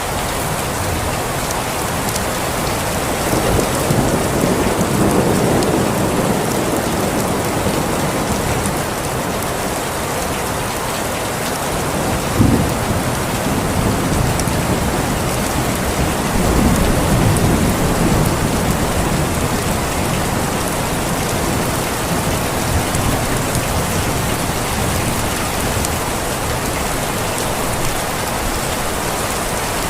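Steady rain, with low thunder rumbling in twice and one sharper crack about twelve seconds in.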